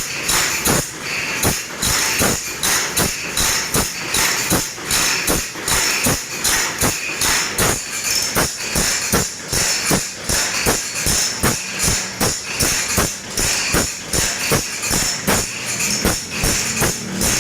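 Steel file rasping across the teeth of a saw in quick, even strokes, about three a second, as the teeth are sharpened.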